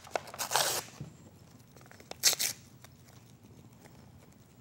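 Brown paper being handled and torn while making a papier-mâché mask: two short rustling tears, one just under a second in and one a little after two seconds, then faint handling sounds.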